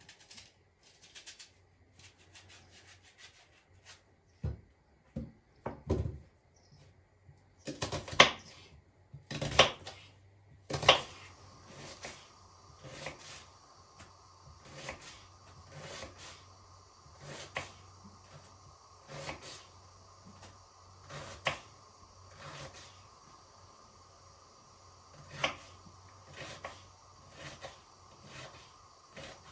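Kitchen work sounds: scattered knocks and clatter, loudest around the middle. From about eleven seconds in, a steady hum sets in beneath regular knocks about every one and a half to two seconds.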